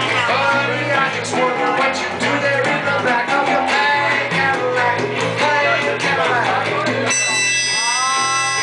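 Live rock band with two electric guitars and a man singing; about seven seconds in, the voice gives way to a harmonica playing held notes.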